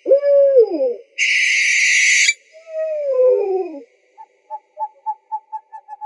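Owl calls: a falling call, then a long hissing screech, then a second falling call, followed by a run of short quick toots from about four seconds in.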